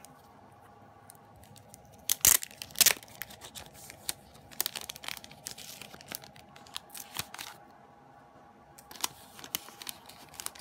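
Clear plastic photocard sleeve ripped open with two sharp tears a little over two seconds in, followed by crinkling and rustling of the thin plastic as the cards are slid out and handled.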